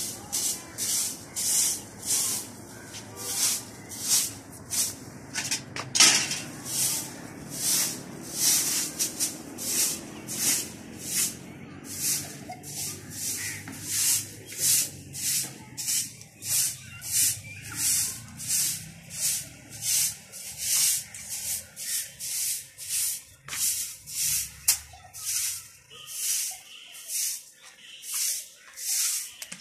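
Soft grass broom sweeping a stone-tiled floor: a steady run of quick, even swishes of the bristles, roughly two strokes a second.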